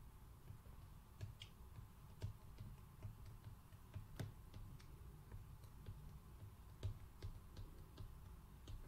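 Faint, irregular clicks and taps of a stylus writing on a tablet screen, a dozen or so sharp ticks spread unevenly, over a low steady hum.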